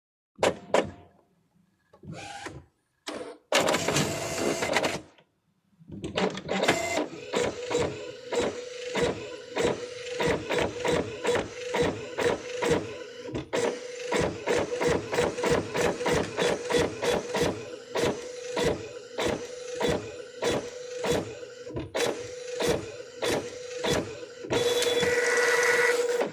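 Desktop printer printing: after a few short clicks and a brief whir as it starts, a steady hum with regular mechanical strokes about two a second, ending in a longer continuous whir.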